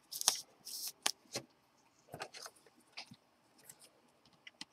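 Thin clear plastic card sleeve crinkling in two short bursts in the first second, then scattered light ticks and taps as a trading card is handled and slid into it.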